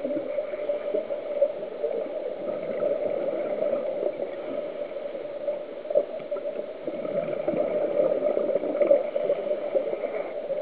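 Underwater sound on a scuba dive: a steady hum with a constant crackle, and irregular surges of bubbling from divers' regulators.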